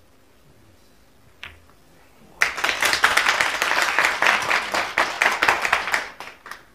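One sharp click of snooker balls colliding about a second and a half in, then an audience applauding for about four seconds.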